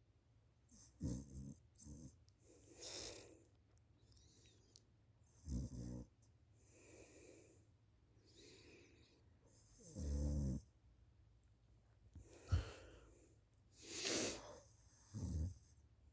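A sleeping person snoring: a low, buzzing snore on each in-breath, alternating with a breathy, hissing out-breath, about every four to five seconds.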